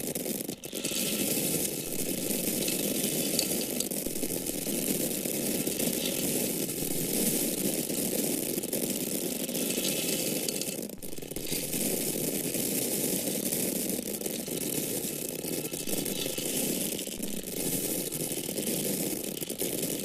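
Dry grains poured in a continuous stream, a steady dense patter, with brief dips about half a second in and again around 11 seconds.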